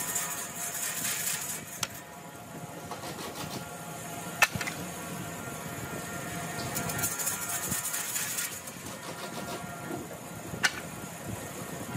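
A workshop machine running steadily with a whine, a high hiss that comes and goes, and three sharp knocks.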